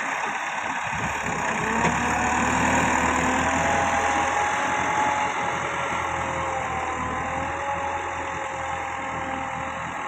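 Massey Ferguson 385 tractor's diesel engine running steadily under load as it pulls a tillage implement through ploughed soil, gradually getting fainter as it moves away.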